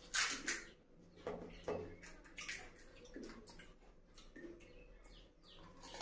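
Crisp fried puri shell cracking as fingers poke it open, loudest just after the start, with a few smaller crackles after it. Then soft wet sounds as the puri is dipped in the pani and raised to the mouth near the end.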